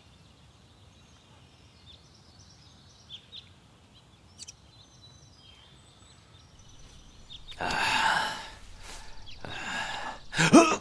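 Quiet room tone with a few faint ticks, then about seven and a half seconds in a man breathes out heavily, followed by two shorter heavy breaths near the end.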